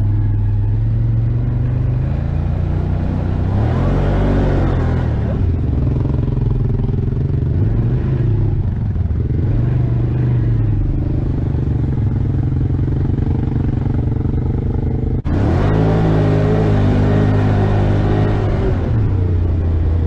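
ATV engine running on a trail ride, its revs rising and falling a few times as the throttle is worked, with a brief drop in sound about three-quarters of the way through.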